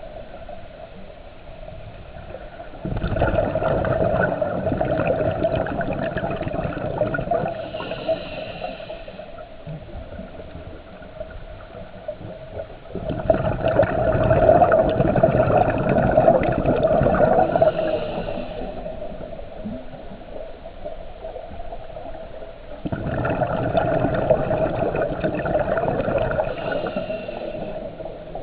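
Scuba diver breathing through a regulator underwater: three long gurgling bursts of exhaled bubbles, each several seconds long and about ten seconds apart, with a quieter steady background between them.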